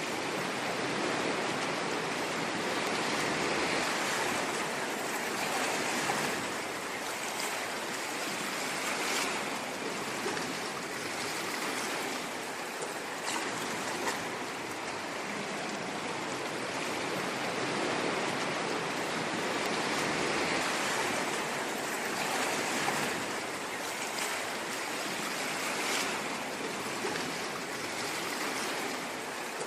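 Ocean waves washing on a shore, a continuous rushing surf that swells and eases slowly every several seconds, with small fizzing splashes on top.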